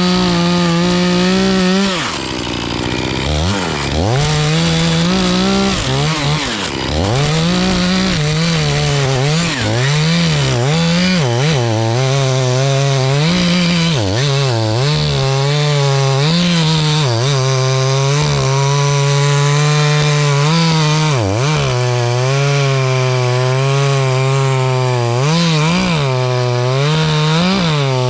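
Two-stroke chainsaw cutting maple at full throttle. Its engine pitch keeps sagging as the chain loads up in the cut and rising again as it frees. The throttle drops briefly about two seconds in and again around six seconds.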